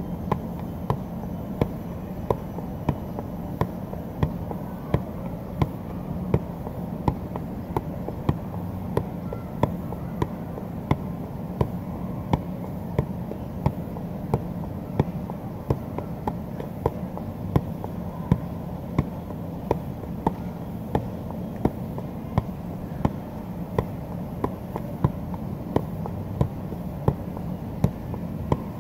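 Soccer ball being juggled on the feet: a steady, unbroken series of kick thumps, about three every two seconds, over a steady low background noise.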